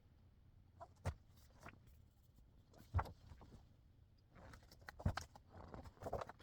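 Faint handling sounds of a magazine and its packaging being unboxed: three soft knocks about two seconds apart with a few light taps between, then rustling of paper and packaging near the end.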